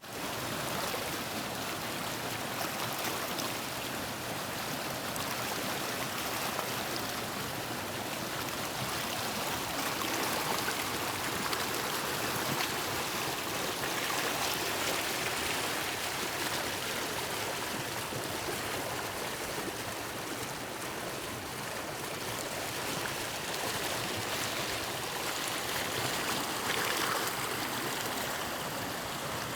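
Waterfall water rushing in a steady, even roar of flowing water.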